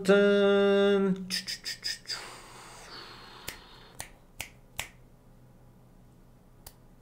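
A man's voice drawn out at one steady pitch on the word "Edmonton" for about a second, then a short hiss and a series of sharp, separate clicks: several quick ones just after the voice, four more between about three and a half and five seconds in, and one near the end.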